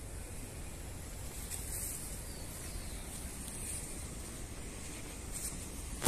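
Steady outdoor background noise: a low rumble with a faint high hiss, and no distinct events.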